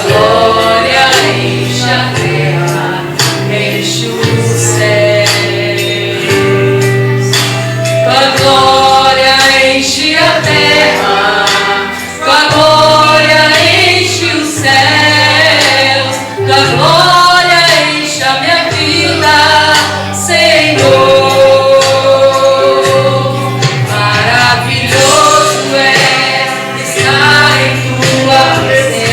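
Gospel song: singing over instrumental accompaniment, with long held bass notes.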